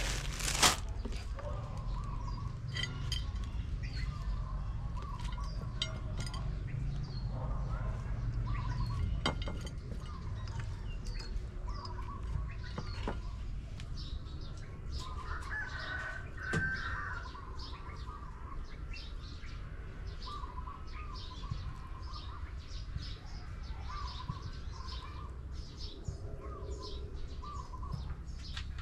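Birds calling over and over: many short high chirps and a run of lower warbling calls, louder for a moment about halfway through. Underneath is a steady low rumble, with a few light knocks.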